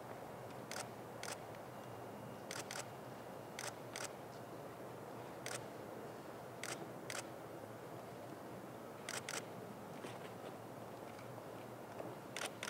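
Camera shutters clicking about a dozen times, singly and in quick pairs, over a steady background hiss.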